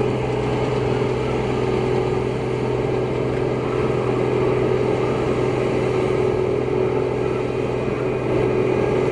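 Claas Mega 208 combine harvester running at a steady, unchanging speed, with a constant low drone and a steady higher hum.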